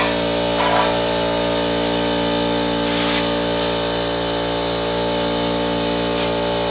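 Multi-chime air horn held in one long, steady chord of several tones, with a short hiss about three seconds in.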